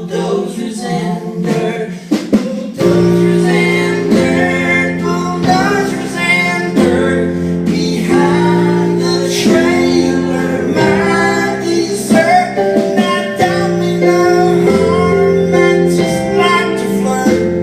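Music: a song with guitar, the low end filling out fully about three seconds in.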